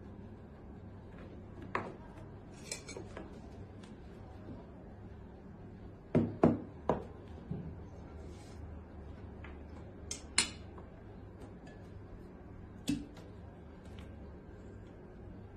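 Knives and forks clinking against plates during a meal, in scattered sharp clicks; the loudest come in a quick cluster of three about six seconds in and a pair about ten seconds in. A low steady hum runs underneath.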